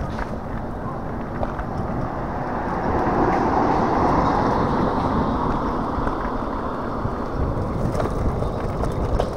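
Wind rushing over the microphone with rolling tyre noise from a Hiboy S2 Pro electric scooter riding along a path, swelling louder for a few seconds midway.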